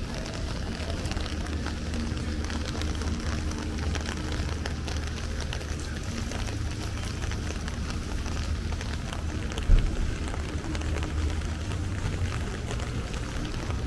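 Rain falling in a city street, with many small pattering drops over a steady low rumble. There is one low thump about ten seconds in.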